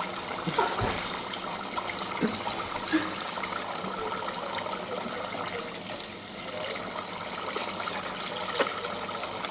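Mars bars deep frying in hot oil: a steady sizzle with a dense crackle of tiny pops.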